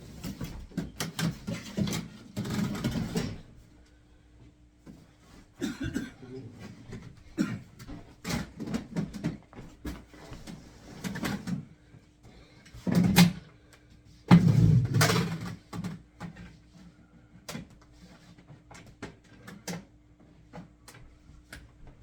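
Irregular knocks, clicks and rustling of objects being handled, with the loudest clatter about two-thirds of the way through, over a faint steady hum.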